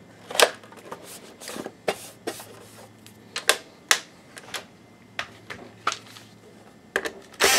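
Plastic lamp-door cover being pressed into place on the underside of a Sharp XV-Z2000 projector: a string of irregular clicks and taps as the cover's edges seat against the plastic housing, with the loudest click near the end.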